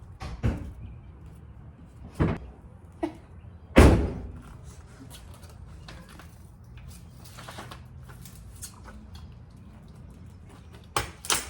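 A few separate knocks and thumps, the loudest about four seconds in, with quiet handling noise between them and a cluster of small clicks near the end.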